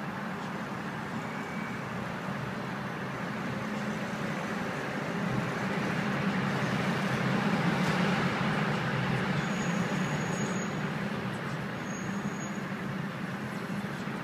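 Car engine hum and traffic noise heard from inside a car's cabin in city traffic. The noise is steady, swells to a peak about eight seconds in, then eases back.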